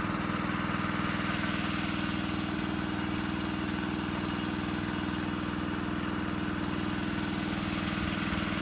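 Small engine running steadily at a constant speed, with an even, fast pulsing.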